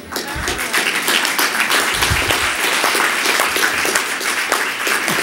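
Audience applauding: dense clapping that swells right away and thins out near the end.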